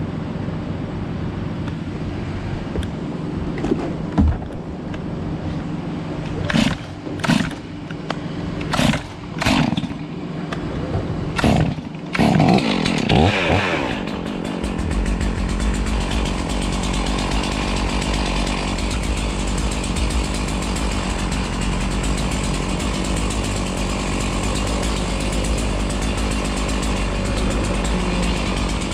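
A chainsaw being pull-started: several short, sharp pulls on the starter cord before it catches near the middle, revs up briefly, then keeps running steadily. A steady engine hum runs underneath.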